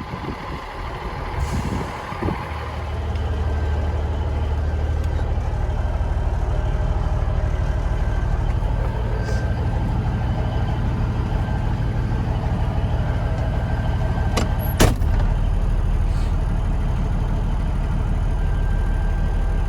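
Semi truck's diesel engine running, its low rumble building about two seconds in and then holding steady as the truck gets under way. A single sharp click about fifteen seconds in.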